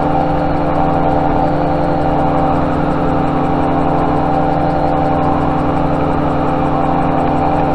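Rotax 503 two-stroke, two-cylinder engine of a gyroplane running at a steady cruise setting in flight, with its pusher propeller, heard close up. Wind buffets the microphone.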